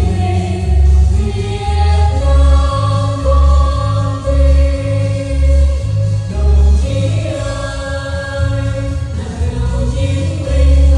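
A vocal trio singing a march in Vietnamese, with held notes over an accompaniment that has a steady, regular bass beat.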